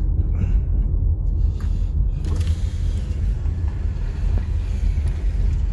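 Steady low rumble of a car travelling at highway speed: engine and tyre road noise.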